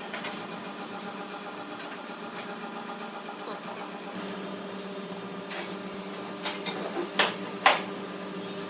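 A power tool's motor running steadily with a constant hum, with a few sharp knocks near the end, the loudest two about half a second apart.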